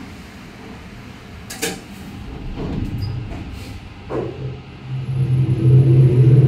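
Kone EcoDisc passenger lift starting its ride up: a sharp click about a second and a half in, a few knocks and creaks, then a steady low hum that grows loud about five seconds in.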